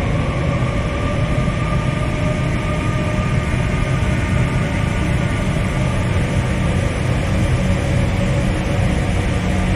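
Dark ambient drone music: a dense, steady low rumble under a wash of noise, with faint held tones above it.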